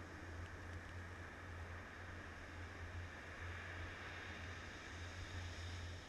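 Steady noise of small surf washing up on the sand and wind on the microphone, with a constant low rumble underneath.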